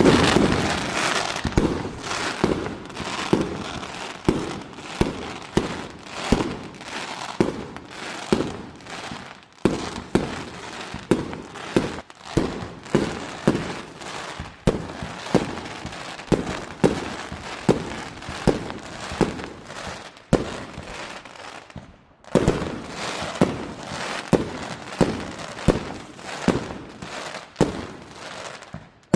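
Fireworks going off in a steady barrage: sharp bangs about three every two seconds, with crackling between them and a brief lull about three-quarters of the way through.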